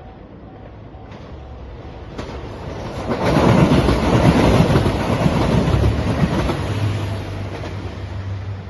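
Diesel train passing close by, growing louder from about a second in, loudest for a few seconds in the middle with a clatter of wheels over the rails, then easing off with a low engine hum near the end.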